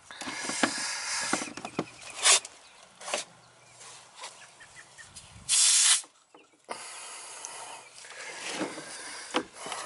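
Nitrogen hissing from a cylinder regulator and hose during a nitrogen pressure test of a heat pump line set: a short, loud blast of gas about halfway through, with quieter hissing and clicks of handling around it.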